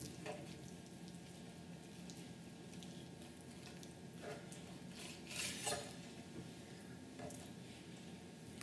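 Faint sound of a chef's knife slicing through a raw tilapia fillet on a bamboo cutting board, with a few light clicks of the blade against the board, the loudest pair about five and a half seconds in.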